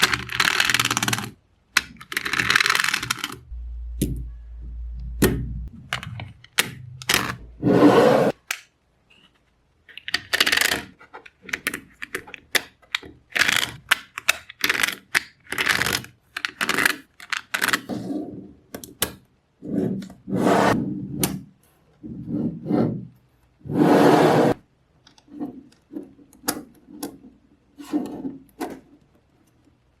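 Small magnetic balls clicking and clacking together in irregular bursts as they are handled and snapped into place, with a few longer rattling runs.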